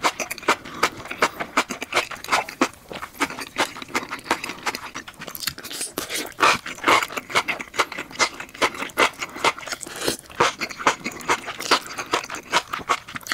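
Close-miked mouth sounds of eating saucy enoki mushrooms: wet slurping and chewing, a dense, irregular run of smacks and clicks.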